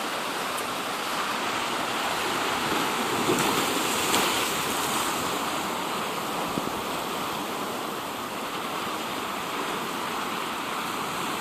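Sea waves washing onto the shore in a steady rush, swelling slightly about three to four seconds in.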